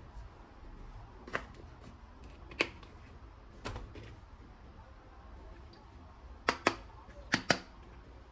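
Toy guns being handled or worked: about seven sharp clicks and knocks, spaced out at first, then two quick double clicks near the end.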